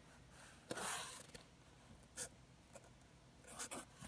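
Sharpie felt-tip marker writing on cardboard: a few short, faint scratchy strokes.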